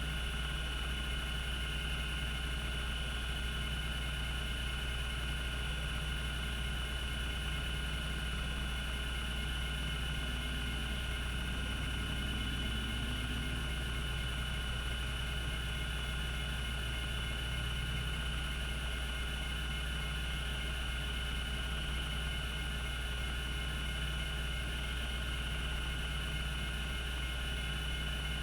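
Cogito Systems CG-912 10 MB MFM hard disk spinning steadily at speed, with a low hum and a steady high-pitched whine, and no seek clicks.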